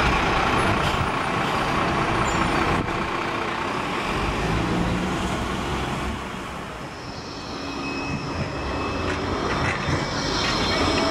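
Seafront traffic rumble, then a Bombardier Flexity 2 electric tram draws up close near the end, with a high steady whine over the rumble.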